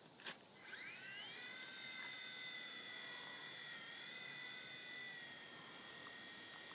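A WLtoys V911 fixed-pitch micro RC helicopter's electric motor spools up with a rising whine about a second in, then holds a steady whine as the helicopter flies. A steady high insect buzz runs underneath throughout.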